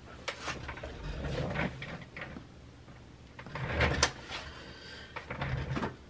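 Small irregular clicks, taps and scraping from hands working with jewelry-making tools and pieces, with a louder cluster about four seconds in.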